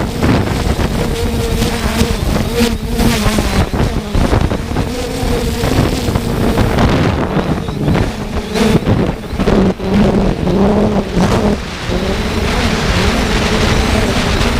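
3DR Solo quadcopter's propellers humming, their pitch wavering as the motors work against the wind, under heavy wind buffeting the microphone in gusts.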